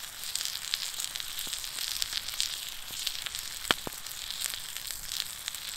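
Two beef steaks sizzling in a frying pan over a campfire: a steady hiss with scattered small pops of spitting fat, and one sharp pop about two thirds of the way through.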